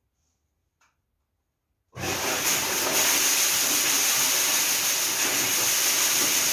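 Homemade grain mixer switched on about two seconds in: its 2.2 kW three-phase electric motor drives the auger through a belt and pulleys, and the barley in the 200-litre barrel churns with a loud, steady rushing hiss.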